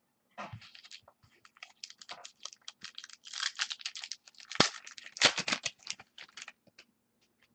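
Hands handling and sorting trading cards on a tabletop: a quick, uneven run of clicks and rustles, busiest midway, stopping near the end.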